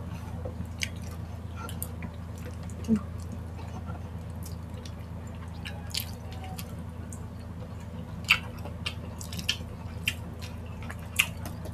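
Close-miked wet eating sounds: irregular sticky clicks, lip smacks and sauce squelches as saucy spicy chicken feet are chewed and pulled apart by hand, over a steady low hum.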